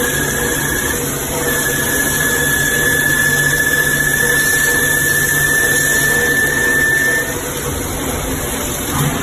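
CNC lathe running a thread rolling head: a steady high-pitched squeal over a constant machine hiss and low hum. The squeal breaks off briefly about a second in, resumes, and stops near the end.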